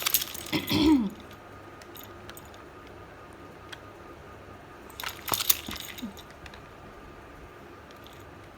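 A woman hiccuping: a short, sudden hiccup with a falling pitch about a second in, then another about five seconds in, with quiet room tone between.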